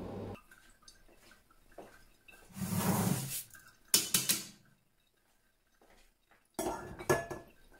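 A metal sieve clattering against an enamel bowl as rinsed rice is tipped out of it. There are a few knocks and scrapes around the middle and a couple more near the end.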